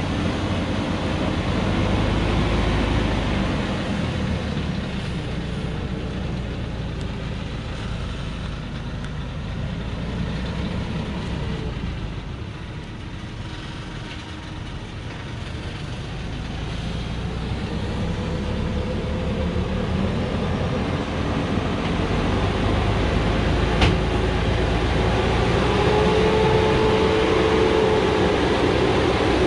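Loaded light truck's diesel engine running as the truck creeps down a steep dirt track. It grows louder in the second half as it nears, with a steady whine toward the end.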